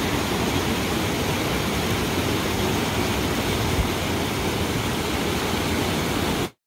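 Rocky mountain creek rushing over boulders: a steady, even roar of water that cuts off suddenly near the end.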